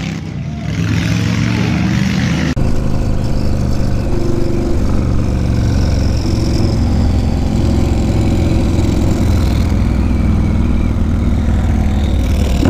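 Yamaha Road Star Warrior 1700's V-twin engine running steadily while riding at cruising speed. It starts suddenly about two and a half seconds in, after a quieter stretch.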